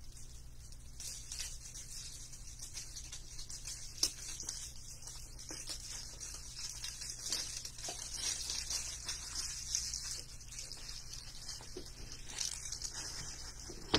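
Quiet room tone: a steady hiss and a low hum, with a few faint clicks and rustles.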